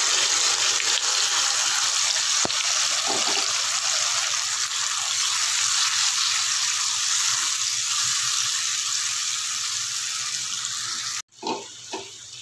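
Wet blended cashew and melon-seed paste sizzling in hot oil in a wok: a loud, steady hiss that eases slightly, then cuts off abruptly near the end.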